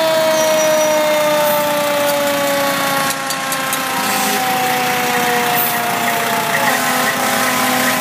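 Fire truck siren winding down, a tone with overtones that falls slowly and steadily in pitch and fades, over the truck's engine running.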